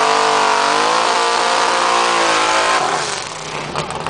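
Chevrolet Malibu sedan's engine being revved, its pitch swelling up and down, then falling back toward idle about three seconds in.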